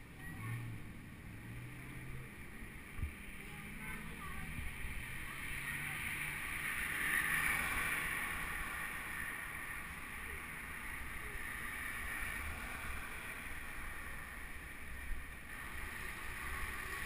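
Rolling noise of a bicycle ridden over a paved path, picked up by a GoPro on the bike, with street traffic swelling around the middle.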